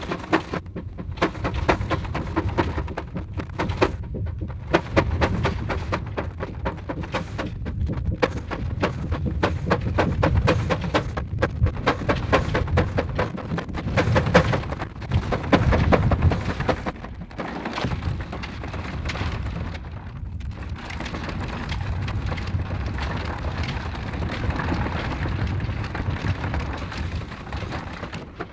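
Steam traction engine running, heard as a low rumble through a badly deteriorated magnetic film soundtrack that crackles throughout and drops out briefly several times.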